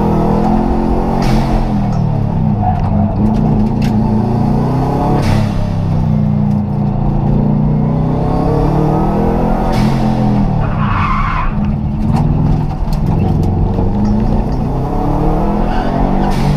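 Rally car engine heard from inside the stripped, roll-caged cabin, revving up and dropping back over and over as it is driven hard through gear changes. A few sharp clicks sound through it, and a brief tyre squeal comes about eleven seconds in.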